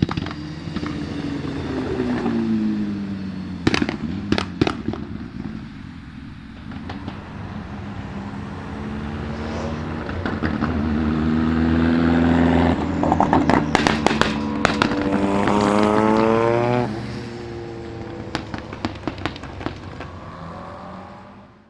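Turbocharged rally cars accelerating and lifting off, engine pitch falling then rising, with clusters of sharp bangs and pops from anti-lag misfiring systems on the overrun. The sound fades out near the end.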